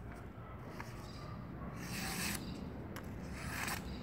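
Thick-bladed knife slicing through a sheet of paper: two short cutting swishes about a second and a half apart. The clean cuts show the edge is sharp.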